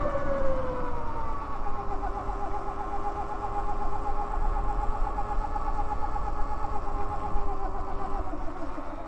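Electric motorbike's motor whining as it rolls along at low speed: the pitch falls over the first second as it slows, then holds steady with a slight warble before fading near the end. Low wind rumble on the microphone underneath.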